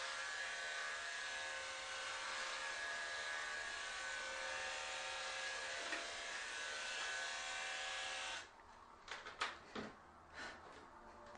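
Electric hair clippers running with a steady buzz as they shave a head, switching off abruptly about three quarters of the way through. A few short clicks and knocks follow.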